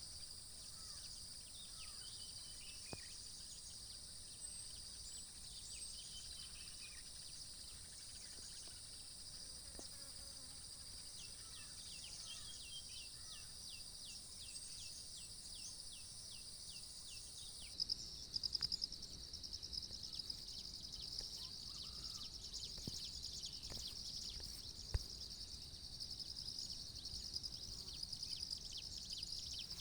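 Steady high-pitched insect chorus, with scattered bird calls and a quick run of repeated bird notes around the middle.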